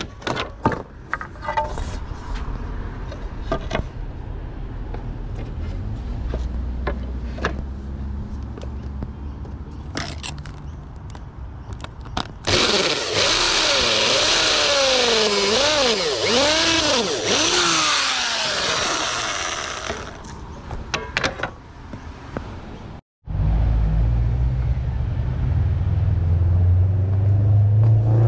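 Corded electric drill running in spurts for several seconds, its pitch sweeping up and down as the speed changes. Before it come scattered tool-handling clicks and knocks; after a sudden break near the end, a steady low hum.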